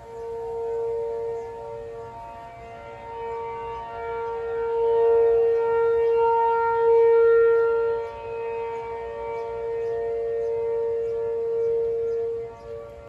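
Rotating outdoor tornado warning sirens, an ACA P-15 and a Federal Signal 2T22 among them, sounding a steady tone during a scheduled monthly test. The tone holds its pitch while its loudness swells and fades as the siren heads rotate, peaking about halfway through.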